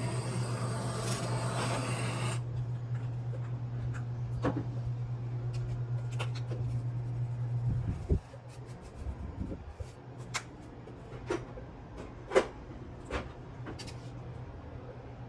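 Kitchen sounds: a hiss cuts off about two seconds in, and a low steady hum runs on until a thump about eight seconds in. After that come a number of light clicks and taps, like dishes and utensils being handled.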